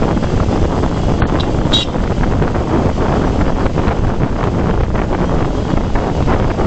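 Steady wind rush buffeting the microphone of a camera on a moving motorcycle, mixed with road and engine noise.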